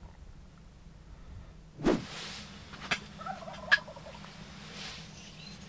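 Wild turkey gobbler gobbling: a short, rapid rattling call between about three and four seconds in. Just before it comes a brief loud noise, and two sharp clicks fall close to the call.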